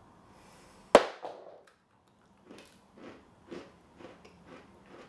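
A loud crunchy snap as a bite is taken out of a raw carrot about a second in, then crunchy chewing at about two chews a second.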